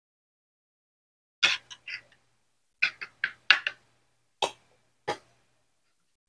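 Eating a meal of cooked mangrove clams: about ten short, sharp clicks and clacks in small clusters.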